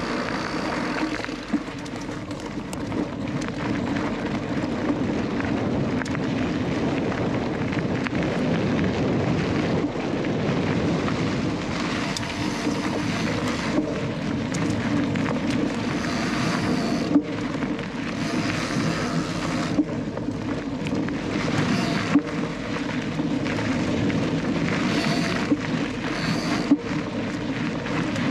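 Canyon Lux Trail mountain bike ridden along a forest trail, heard from the onboard camera: a steady rumble of tyres and wind on the microphone. The rear hub's freewheel buzzes in spells of a second or two whenever the rider coasts, and a few sharp knocks come from bumps in the trail.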